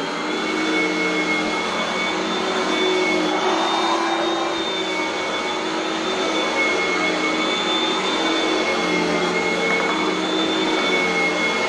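Oreck Elevate Conquer upright vacuum cleaner running steadily on its carpet setting over a bare hardwood floor: an even motor whine with two steady high tones.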